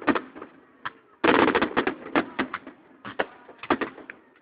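Fireworks shells bursting overhead in a rapid run of sharp bangs and pops, heard through a phone microphone. The bangs are densest just over a second in, then scattered.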